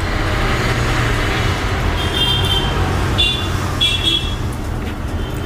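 Steady road-traffic rumble with three short, high-pitched horn toots about two, three and four seconds in.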